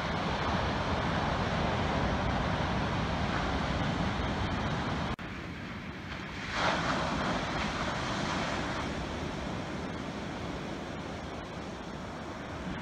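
Ocean surf breaking on the beach, mixed with wind on the microphone. The sound cuts abruptly to a slightly quieter take a little past five seconds in, then swells louder briefly about a second later.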